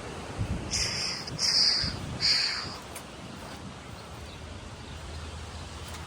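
A bird gives three short, harsh calls in quick succession, all within about two seconds.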